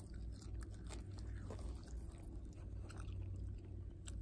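Faint chewing close to the microphone, with small irregular crunches over a low steady hum.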